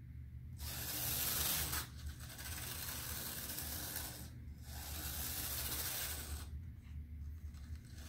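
HO-scale diesel model locomotive running on DC track power, its small motor and gear train whirring as the wheels roll on the rails. The whir starts about half a second in, dips briefly twice and fades away near the end.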